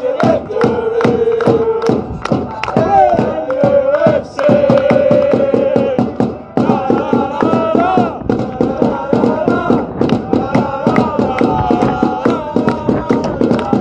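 A group of football supporters singing a terrace chant together in long held notes, over a quick, steady beat.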